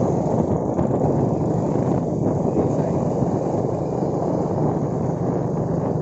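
Motor scooter running at steady road speed, with a constant rumble of wind on the microphone.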